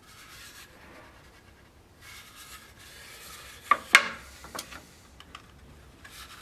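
Hands rubbing and handling small wooden scabbard-core pieces on a workbench, with two sharp clicks about a third of a second apart a little before the middle, as the pieces are set together.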